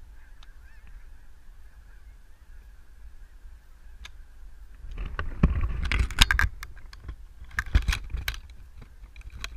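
A flock of geese honking as a faint, continuous chorus of calls. Louder sharp bursts of sound come about five seconds in and again about eight seconds in.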